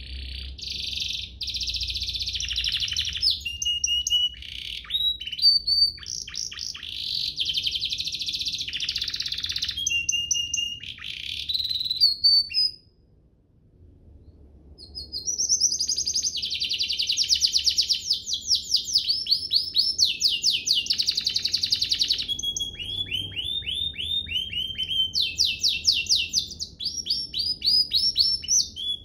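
Domestic canary singing a long, fast song of rapid trills and rolls, with a pause of about two seconds near the middle.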